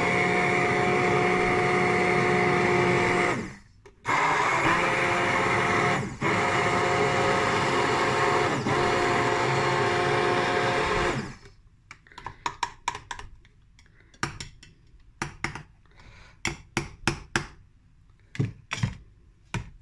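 Bamix immersion blender running in a glass jug of raw apple and carrot smoothie, a steady motor whine that cuts out briefly about three and a half seconds in, starts again and stops for good just past halfway. Then a series of light knocks and clinks.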